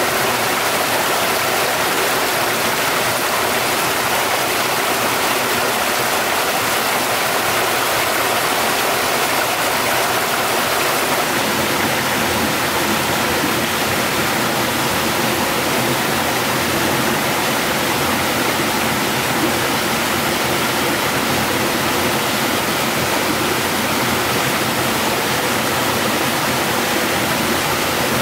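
Stream water rushing in a steady, loud flow; about eleven seconds in it turns deeper and fuller.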